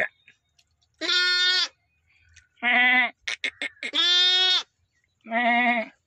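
Young lambs bleating, four wavering bleats about a second apart, two callers taking turns, one higher-pitched than the other. A few light clicks come between the second and third bleats.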